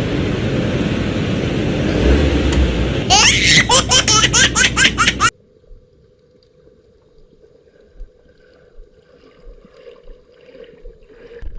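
Loud rumbling noise, likely a vehicle in motion. About three seconds in, a person laughs in a rapid run of short bursts. The sound cuts off suddenly after about five seconds to a quiet, faint steady hum.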